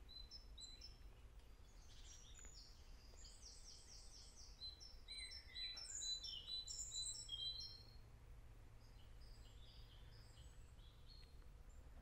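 Faint woodland birdsong: several small birds chirping and trilling, busiest in the middle, over a low steady rumble.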